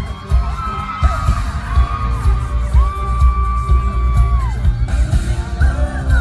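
Live pop-rock band music played loud through a concert sound system, with heavy drum and bass thumps. A voice holds one long sung note through the middle.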